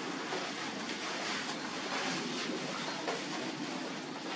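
Steady rushing wind through trees during a thunderstorm, with a few faint ticks over it.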